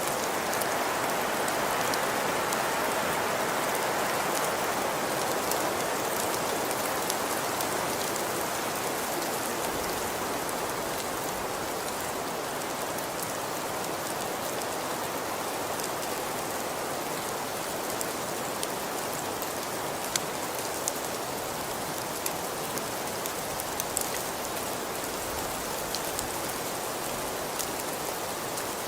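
Steady rain falling, an even hiss with scattered sharper drop ticks, slightly heavier in the first few seconds.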